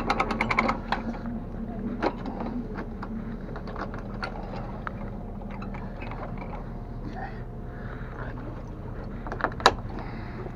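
A vehicle engine idling steadily under a run of rapid metallic clicks in the first second, with scattered knocks and one sharp clank near the end.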